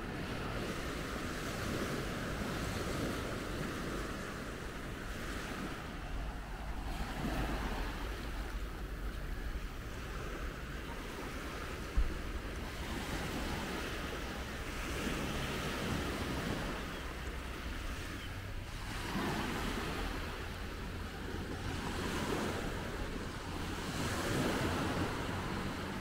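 Small sea waves breaking and washing up a sandy beach, the hiss swelling and fading every few seconds, over a low rumble of wind on the microphone. A single brief thump about halfway through.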